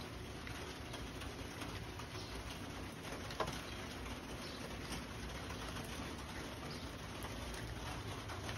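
Steady hiss and patter of rain outside an open screen door, with one short click about three and a half seconds in.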